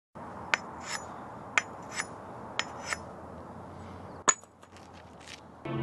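Metallic clinks with a high ringing edge, in pairs about once a second: a sharp strike followed by a softer scrape, over a steady hiss. A single sharper, louder clink comes about four seconds in.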